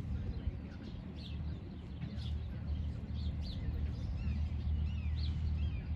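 Small birds chirping repeatedly in quick, short rising and falling notes, over a steady low rumble.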